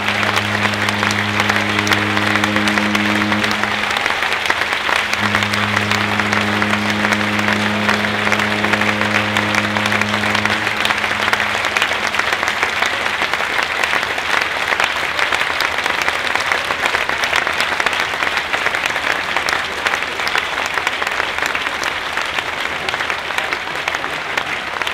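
Deep horn of the cruise ship Mein Schiff 3 sounding two long blasts, the first stopping about three and a half seconds in and the second lasting from about five to ten and a half seconds, over steady crowd applause.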